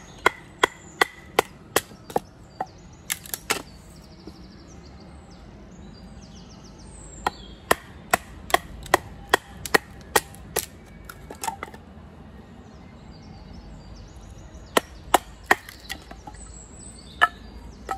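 Fir baton striking the spine of a Ka-Bar BK72 knife, batoning it through a very dry piece of fir: sharp wooden knocks about two to three a second, in three runs with pauses between, as the wood is split.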